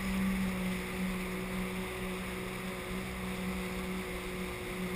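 Sea-Doo personal watercraft engine running steadily underway, a constant low drone over a steady rush of water and wind noise.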